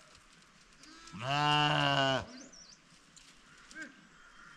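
A sheep bleats once: one long, loud, steady call lasting about a second, starting about a second in.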